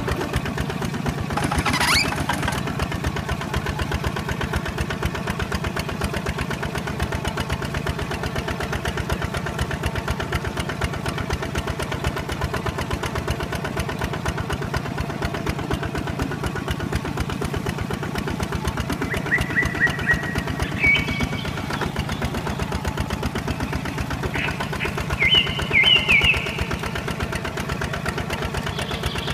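The motor of a radio-controlled toy tractor runs steadily with a rapid, even putter as it tows another toy tractor. A brief rising whine comes about two seconds in, and a few short high-pitched chirps come near the end.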